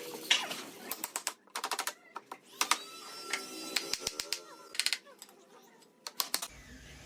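Bursts of quick, sharp taps and clicks, several in a row each time, from hand work on wood.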